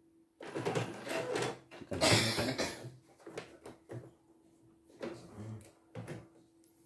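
Embroidery hoop of a CNY E900 embroidery machine being handled, unclipped from the carriage arm and lifted off: a series of irregular plastic clicks, knocks and rattles.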